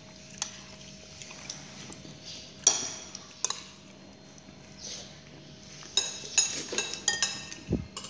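Metal spoon clinking and scraping against a ceramic plate while scooping rice and soup: a few scattered clinks, then a quick run of ringing clinks near the end.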